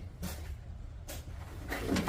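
A few faint metal knocks as an exhaust header is worked into a car's engine bay, over a low steady hum.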